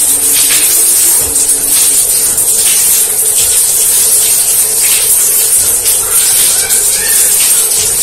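Shower head spraying water steadily, pouring over a person's head and soaked clothes: an even, loud hiss of running water.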